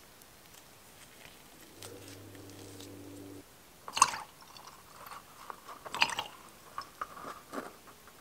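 Crisp crackles and clicks from a slime-filled rubber balloon being handled, the loudest about four and six seconds in. A faint steady hum comes in briefly a couple of seconds in.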